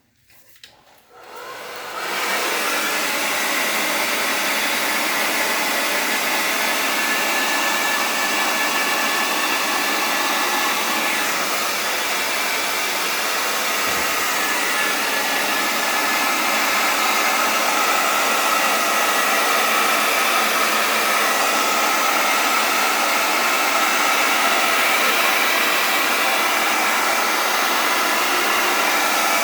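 Handheld hairdryer switched on and blowing steadily with no nozzle attachment, pushing wet acrylic pour paint across a canvas. It comes up to full speed about a second in and then runs at an even rushing whoosh.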